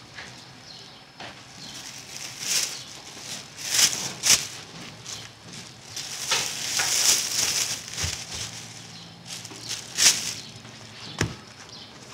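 Thin clear plastic bags crinkling and rustling in irregular bursts as flatbreads are packed into them, with a couple of short knocks near the end.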